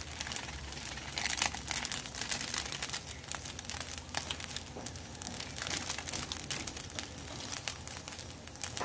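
Fried rice crackling and sizzling in a hot wok, a dense run of irregular small crackles with no stirring.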